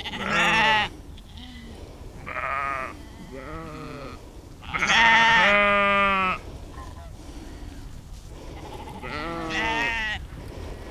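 Sheep bleating: about five separate calls, the longest and loudest about halfway through, a softer one near the end.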